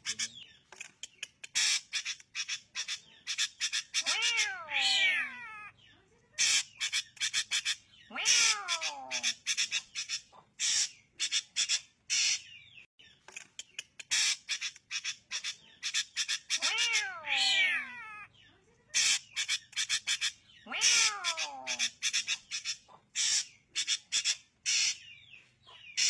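Drongo calls: rapid runs of sharp, metallic notes, broken four times by a harsh call that slides steeply down in pitch.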